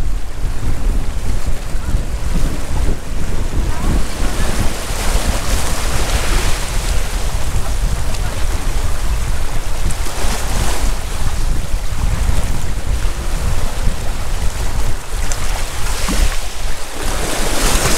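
Waves washing onto a rhodolith gravel beach, the surf hiss surging up every several seconds, with wind rumbling on the microphone throughout.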